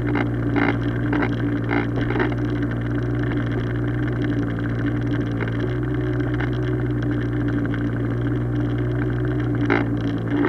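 Small Hangkai outboard motor running steadily on an inflatable boat, with a few splashes and knocks of oars being worked in the first couple of seconds and again near the end.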